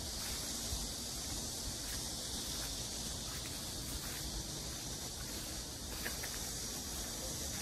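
Steady high hiss of a cicada chorus in the trees and hedges, with soft footsteps along a grass path and a low rumble underneath.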